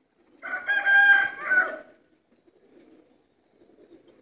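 A rooster crowing once, a loud call of about a second and a half that starts about half a second in and swells twice before breaking off.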